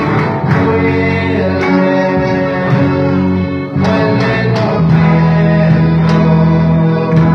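Music: plucked guitar with singing, steady and continuous.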